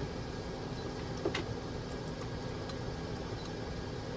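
Steady whir of the van's ventilation fan, with a single sharp click about a second in.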